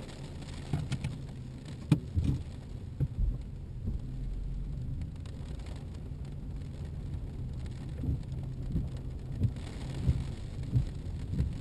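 BMW E90 heard from inside the cabin while driving: a steady low engine and road drone, with scattered knocks and rattles from bumps in the road.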